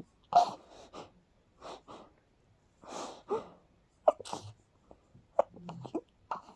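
A person sneezing again and again in quick succession, with short noisy breaths between the sneezes.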